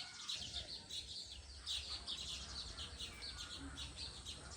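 Baya weavers chirping in a steady run of short, rapid chirps, about three or four a second, over a low rumble.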